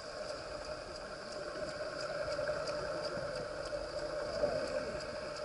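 Boat engine running, heard underwater through a submerged camera: a steady hum with a light, regular ticking.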